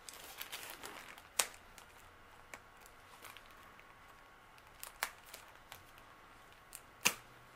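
Clear plastic packaging crinkling as a small craft blade slits it open, with a few sharp crackles of the plastic, the loudest about a second and a half in and near the end.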